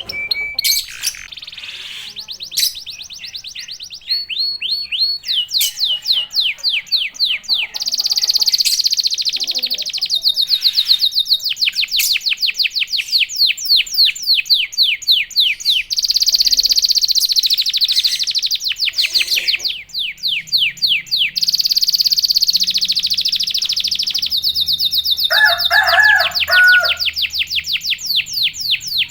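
Domestic canary singing a long song of fast rolling trills: phrase after phrase of rapid, high repeated notes, some phrases pulsed and some run together. A short, lower-pitched call breaks in near the end.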